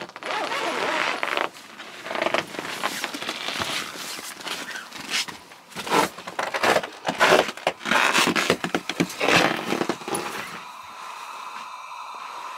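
Heavy canvas tent door flap being pushed aside and handled, with irregular rustling and scraping of canvas and clothing close to the microphone; the noise dies down about ten seconds in to a quieter steady background.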